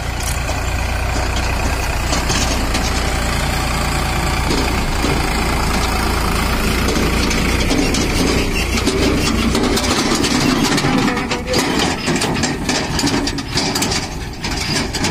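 A Sonalika DI 47 RX tractor's three-cylinder diesel engine running steadily with a deep low hum. About ten seconds in, the low running fades and the sound turns uneven and choppy.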